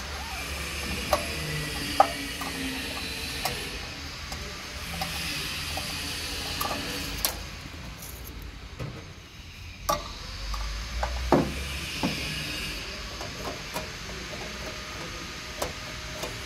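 Screwdriver on the metal printhead carriage of a large-format printer: scattered sharp clicks, a few seconds apart, as screws are worked. A steady low hum runs underneath.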